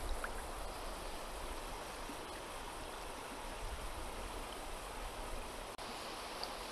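Shallow, stony river running over a riffle: a steady rush of water, broken for an instant near the end.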